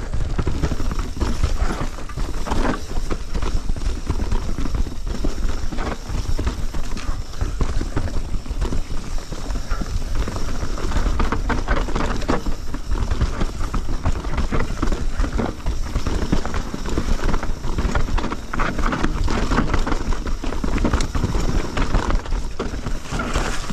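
Mountain bike ridden down a rough forest trail: continuous rattling and knocking from the bike over the bumps, with a steady low rumble of wind and ground noise on the bike-mounted microphone.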